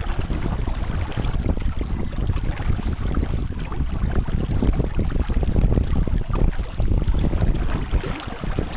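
Wind buffeting the microphone, with water rushing along the hull of a small sailboat under way.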